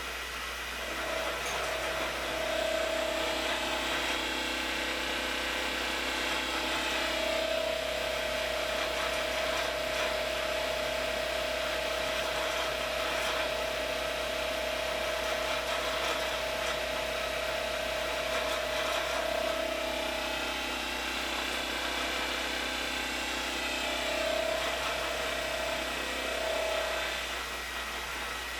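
Milling machine cutting metal: a steady whine over a rasping cutting noise. It picks up about a second and a half in and is strongest through the middle, and near the end it comes and goes as the cut eases off.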